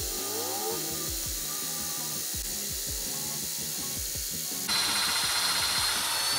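Power drill running, boring a pilot hole into a snapped cylinder head bolt. About three-quarters of the way through it gets louder, with a steady high whine, over a background music beat.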